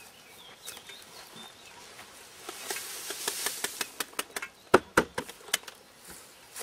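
Grass clippings rustling out of the plastic grass-catcher basket of an AL-KO Silver 520 BR Premium lawnmower as it is tipped and shaken empty, with a run of sharp knocks from the basket, the two loudest about five seconds in.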